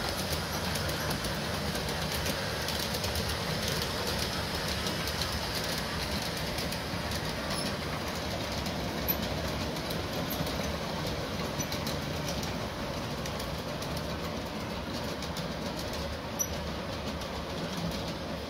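G-scale model freight train behind USA Trains EMD F-unit diesels, rolling steadily over sectional track laid on a hardwood floor: an even rumble of metal wheels on the rails with light, scattered clicks as the cars cross the rail joints.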